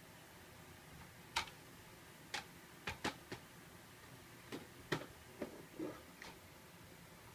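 Irregular light plastic clicks and knocks, about ten over several seconds, from a switched-off cordless stick vacuum being pushed across the floor and bumped under and against things.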